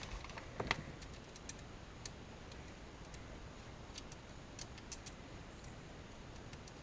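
Faint, scattered light clicks and taps of small plastic parts and wiring being handled, a few irregularly spaced ticks over a low background.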